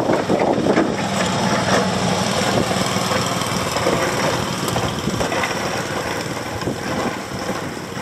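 Pickup truck engine running steadily as the truck works through the snow, a low even hum under wind noise.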